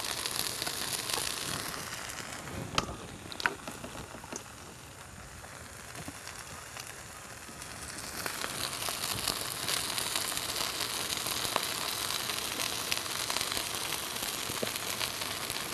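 Chicken pieces frying on a flat-top griddle: a steady sizzle and crackle, with a couple of light knocks about three seconds in. The sizzle drops back for a few seconds in the middle and then comes up fuller again.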